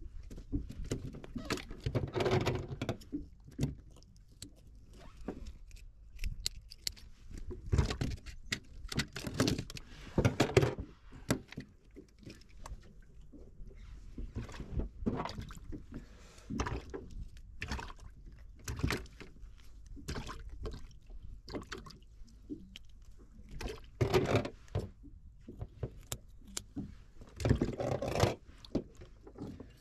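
Handling noises on a small fishing boat's deck: scattered knocks, clicks, scrapes and rustles as a caught fish is held in a towel and unhooked with hand tools.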